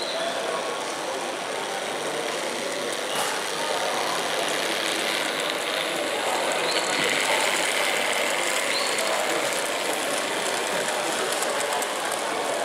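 Model diesel freight trains running through a layout's station: a steady engine-like running sound over the general noise of the exhibition hall, getting a little louder midway as the trains pass.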